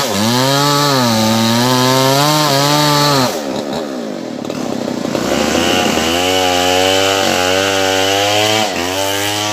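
A small engine running, its speed wavering up and down. In the middle it turns into a harsher, noisier rasp for about two seconds, then settles back to a steadier speed.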